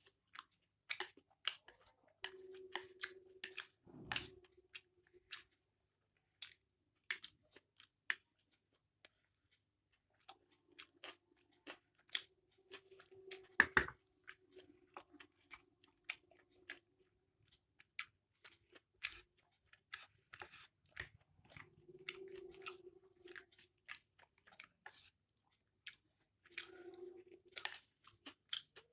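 Close-miked chewing of a mouthful of chow mein noodles, with many sharp, wet mouth clicks and a few short low hums.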